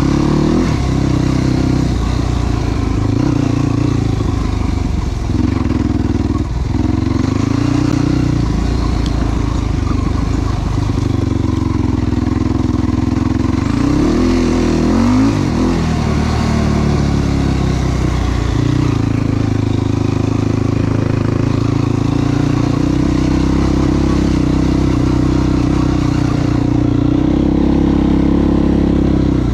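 Yamaha YFZ450 ATV's single-cylinder four-stroke engine running hard under throttle while riding. Its pitch dips briefly several times in the first several seconds, then drops deeply and climbs back up about halfway through as the throttle is closed and opened again.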